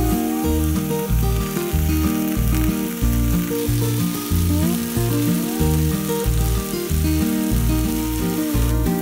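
Sliced onions and red bell pepper strips sizzling in hot oil in a frying pan, after being tipped in. Background music with a steady bass line plays throughout.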